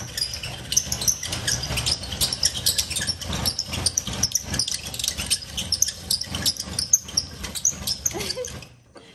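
Hand-cranked coconut scraper grating the flesh out of a half coconut: a continuous scratchy rasping full of short high squeaks as the toothed head turns against the shell, stopping near the end.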